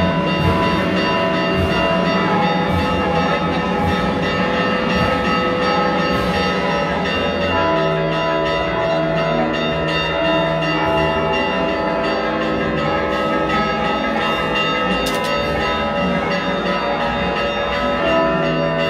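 Church bells ringing continuously in a repeated peal, with music of sustained held notes underneath.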